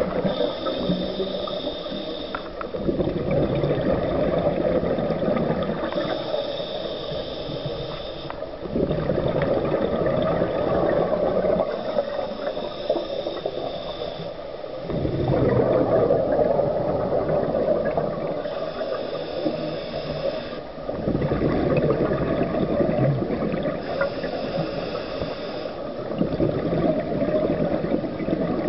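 Scuba regulator breathing heard underwater: a hissing inhale through the regulator alternates with a rumbling, bubbling exhale, in a slow cycle of about six seconds.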